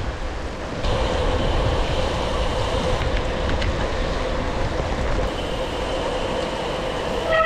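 Heavy rain and riding noise from a gravel bike climbing in a downpour: a steady rushing noise with faint steady tones through it. A short, higher pitched tone sounds near the end.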